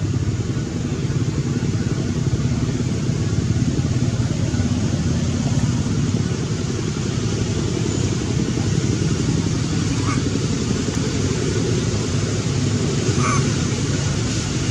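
Steady low rumbling noise, with two brief faint high sounds about ten and thirteen seconds in.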